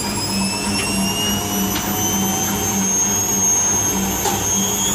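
Whirlpool washing machine on its spin cycle during a service test: the motor's whine climbs slowly in pitch as the drum speeds up, over a low hum that pulses about two to three times a second.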